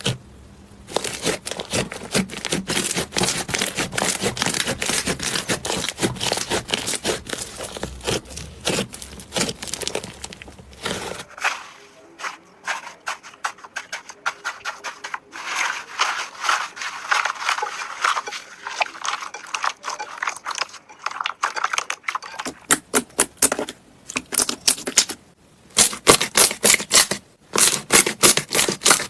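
Slime being squished and played with, giving dense runs of small crackling clicks and pops. The sound changes character about eleven and twenty-two seconds in, as one slime clip gives way to another.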